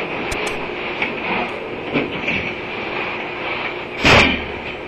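Work on a furnace: a steady mechanical hum with a few light clicks near the start, then one loud knock about four seconds in.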